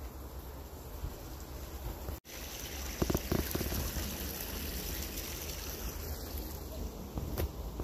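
Small creek running over a fallen log: a steady rush of water that begins after a brief break about two seconds in, with a few soft thumps soon after.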